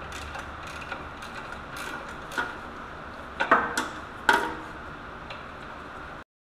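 Irregular metallic clicks and clinks of a wrench working a lower bell housing bolt loose, with a few sharper knocks a little past halfway. The sound cuts off abruptly near the end.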